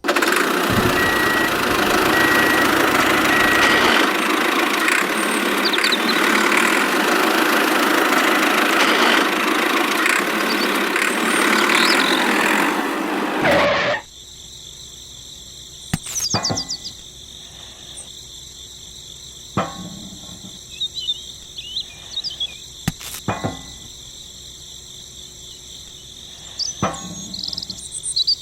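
A loud, steady rushing noise that cuts off suddenly about halfway through. It leaves a steady chorus of crickets, with a few sharp knocks and short bird chirps.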